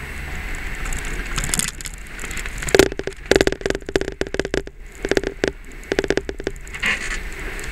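A camera chattering as it taps rapidly against a jeep's front windshield, in a run of quick taps from about three seconds in until shortly before the end, over the steady low noise of the jeep driving.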